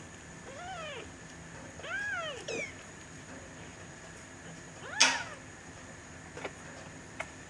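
Three-week-old Bengal kittens mewing: four short, high, arched mews, the loudest about five seconds in.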